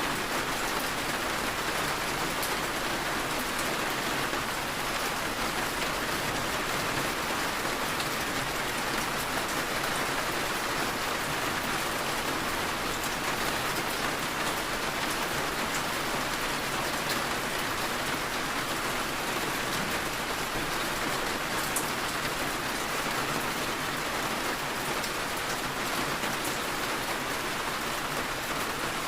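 Steady rain falling on a surface: an even hiss with faint drop ticks, holding the same level throughout.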